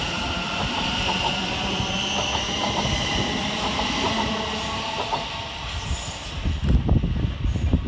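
Class 717 electric multiple unit (Siemens Desiro City) pulling out and passing close by: a steady whine from its electric traction equipment over rapid clicking of wheels on rail joints. Near the end, as the last coach passes, gusty low rumbling buffets the microphone.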